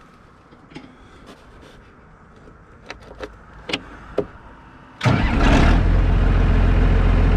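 A few light clicks and knocks, then about five seconds in the log skidder's diesel engine starts, catching at once and settling into a steady idle. This is the first start after a fresh oil change, run to check for oil pressure and leaks.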